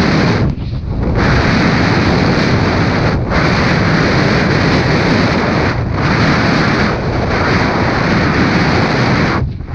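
Loud, steady wind rush over the microphone of a snowboarder's body-worn camera during a fast powder run, mixed with the hiss of the snowboard through snow. It drops briefly about half a second in and again near the end.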